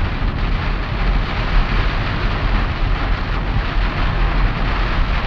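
Steady rush of rain and tyre spray, heard from inside the cabin of a car driving on a soaked road, over a low rumble of road noise.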